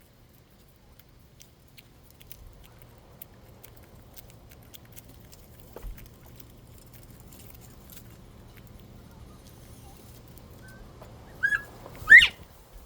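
Northern bobwhite quail whistling its two-note call near the end: a short note, then a louder, sharply rising whistle. Faint scattered light ticking runs under it.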